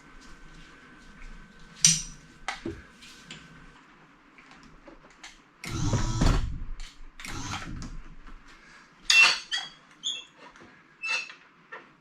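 Clinks and knocks of metal rigging and a cast-iron lathe being handled for a sling lift, with two longer scraping rubs about six and seven and a half seconds in. Some of the clinks ring briefly.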